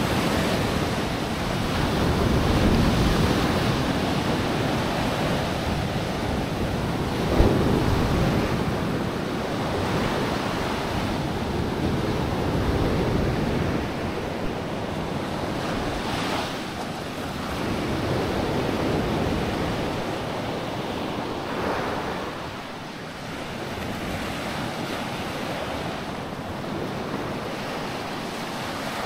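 Sea waves washing onto a sandy beach, swelling and ebbing every few seconds, with wind buffeting the microphone. A single brief knock about seven seconds in.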